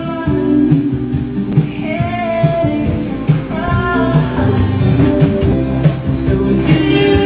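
Background music: a song with guitar and a singing voice over a steady accompaniment.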